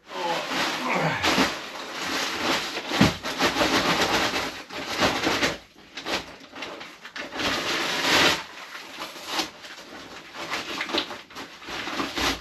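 A heavy paper sugar sack being handled and torn open by hand: a long run of paper rustling and crinkling with a few short breaks.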